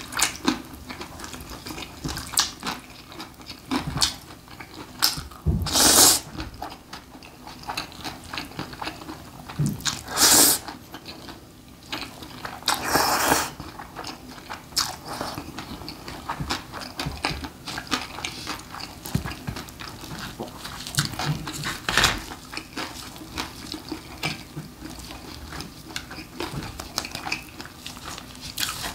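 Close-miked eating of spicy mixed noodles: three long, loud slurps, with wet chewing and mouth smacks in between.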